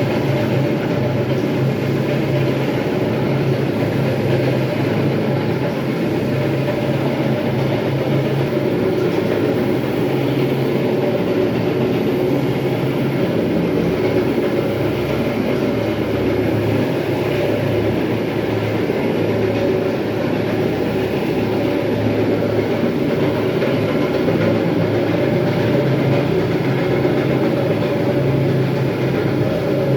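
Electric terrazzo floor grinder running steadily as it grinds the floor: a constant low motor hum under a rough, unbroken grinding noise.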